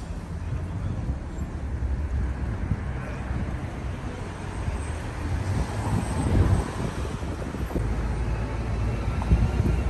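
Wind buffeting the microphone outdoors, a low rumble that swells and eases, strongest about six and nine seconds in.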